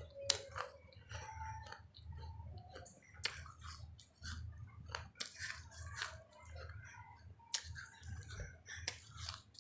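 Close-up mouth sounds of a person chewing a large crisp fried snack (big matki), with about six sharp, unevenly spaced crunches over softer chewing. A low steady hum runs underneath.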